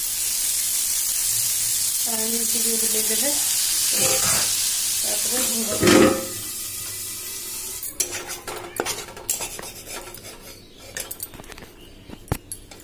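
Chitau pitha batter sizzling loudly on a hot pan, with a sharp clank of a steel bowl set over the pan as a lid about six seconds in. The sizzle then falls away to light clinks and clatter of utensils.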